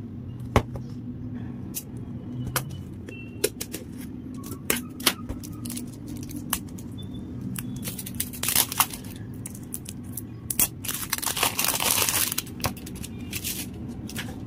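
Clear plastic wrapping being peeled and torn off a hard plastic egg-shaped clay container: crinkling and scratching with scattered sharp clicks and taps on the plastic shell, and two longer tearing rushes, one past the middle and one near the end. A low steady hum runs underneath.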